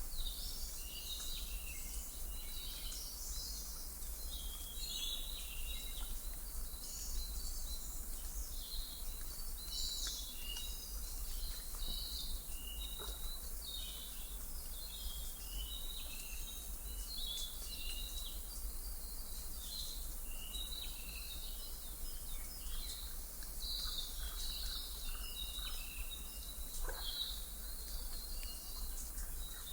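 Many birds chirping constantly in short, overlapping high calls over a steady hiss and a low rumble: a white-noise nature ambience of birdsong.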